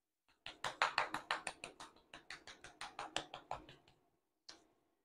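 Pepper mill being twisted: a quick run of grinding clicks, about seven a second, growing fainter over some three seconds, then a single click near the end.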